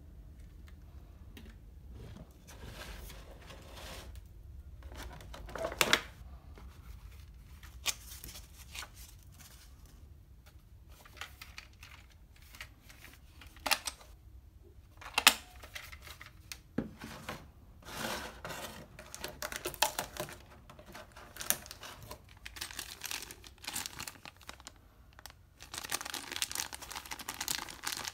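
Hard plastic parts of a small RC helicopter and its transmitter being handled, giving scattered sharp clicks and knocks, the loudest near the middle. Over the last few seconds a clear plastic parts bag crinkles.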